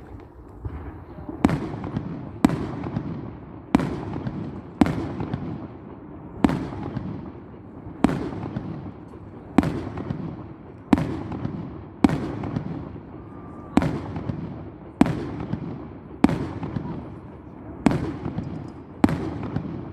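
Aerial fireworks shells bursting in a steady series, about fourteen loud bangs a second or so apart, each followed by a fading tail.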